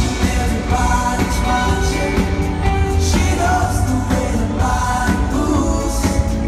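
Live band playing in a large arena, with a lead vocal sung over guitars, keyboard and drums, heard from out in the crowd.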